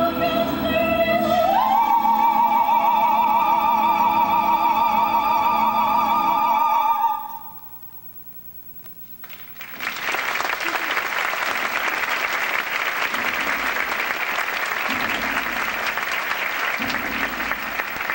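An operatic soprano holds a long high note with vibrato, stepping up to a higher pitch about a second and a half in, and breaks off about seven seconds in. After a short hush, the audience applauds.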